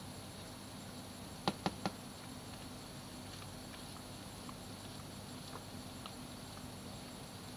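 Steady high insect chirring, with three quick sharp clicks about a second and a half in.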